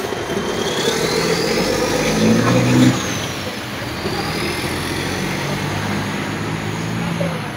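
A motor vehicle's engine running close by, a little louder up to about three seconds in and then easing off, with a faint whine rising and falling above it.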